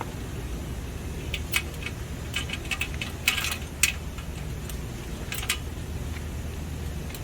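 Light metallic clicks and clinks from handling small metal parts and tools during the motor and fan guard assembly, scattered with a quick cluster in the middle, over a steady low hum.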